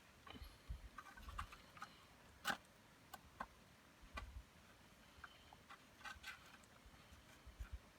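Faint, irregular clicks and soft knocks over near silence, the sharpest click about two and a half seconds in.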